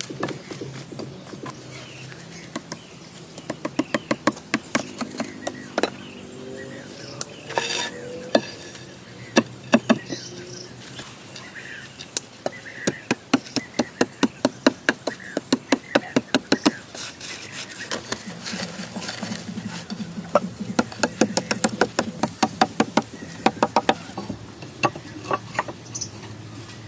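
Runs of sharp knocks, several a second, broken by short pauses.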